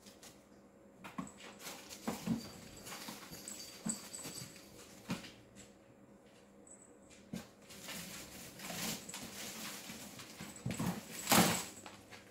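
Kittens scrambling in an artificial palm plant: plastic fronds rustling and shaking, with light knocks and scrabbles as they climb the pot and land on the floor. The loudest is a sharp rustling burst about a second before the end.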